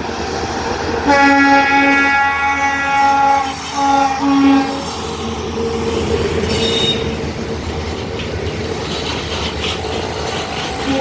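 Long freight train rolling through with a steady rumble of wagons, its locomotive horn sounding one long blast about a second in, then two short blasts, and starting again at the very end. A brief high squeal comes midway.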